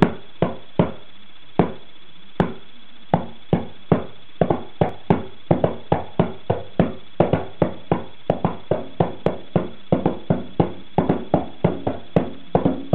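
Darbuka (goblet drum) played by hand by a child: an uneven run of single slaps on the drumhead at first, then quicker, denser strokes from about four seconds in.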